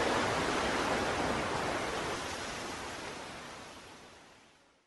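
A steady, even hiss that fades out over about four seconds and stops just before the end.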